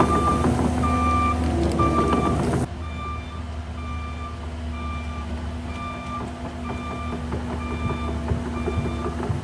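Heavy equipment's backup alarm beeping steadily, a bit more than one beep a second, over a diesel engine running. The surrounding machine noise drops abruptly about three seconds in while the beeping carries on.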